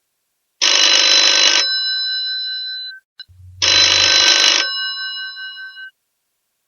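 Old telephone bell ringing: two rings of about a second each, three seconds apart, the bell tones ringing on and fading after each ring.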